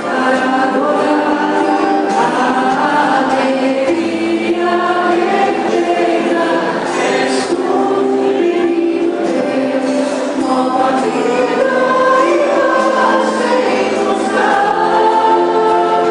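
A church choir singing a thanksgiving hymn, several voices holding sustained notes in harmony.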